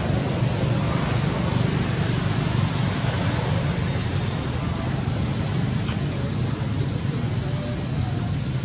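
Steady low rumbling outdoor background noise with a hiss over it, and faint voices in it.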